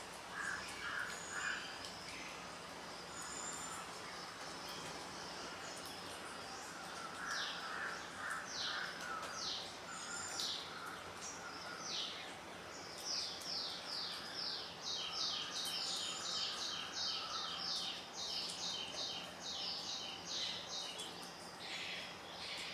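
Birds calling: short high calls, scattered at first and then coming fast, about three a second, through the second half, with lower chattering notes near the start and again about a third of the way in, over a steady background hum.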